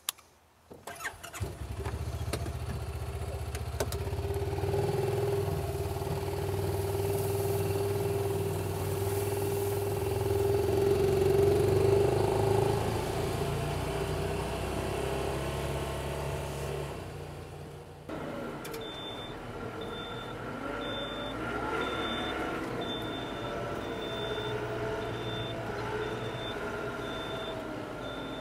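Honda side-by-side UTV engine running as it drives off, louder about twelve seconds in, then fading. After a cut about eighteen seconds in, a tractor engine runs while a high reverse-style beeper sounds about one and a half times a second.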